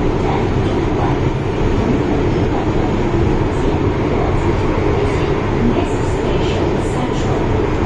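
Hong Kong MTR Island Line M-Train heard from inside a carriage while running: a steady, loud, low rumble of wheels on rail and running gear.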